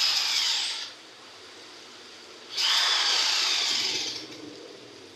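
Handheld power tool running with a motor whine in two bursts: one cuts off about a second in, and the other starts halfway through and runs for nearly two seconds.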